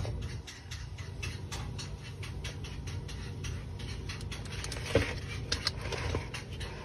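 Handling noise: a run of light, irregular clicks and crackles from the phone and the plastic tub being moved, with a louder knock about five seconds in, over a low steady hum.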